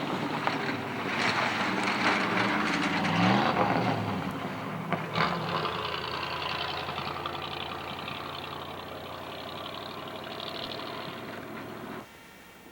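An engine running, its pitch gliding up about three seconds in, then settling steady before cutting off suddenly near the end.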